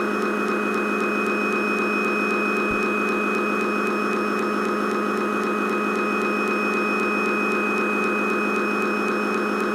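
Steady machine hum with several constant tones over an even noise, unchanging throughout, with a brief low thump about three seconds in.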